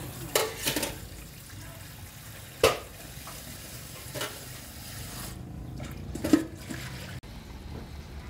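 Water simmering in a wok under a metal bowl of minced pork and fermented fish set to steam, with several sharp knocks. The loudest knocks come about two and a half and six seconds in.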